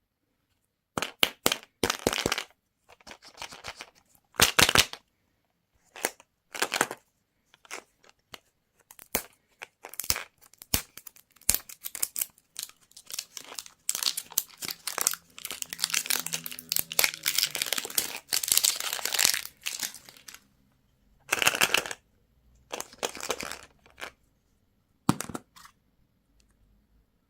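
Plastic candy wrapper being crinkled and torn open by hand, in irregular crackling bursts with short pauses and a longer, denser stretch of crinkling in the middle.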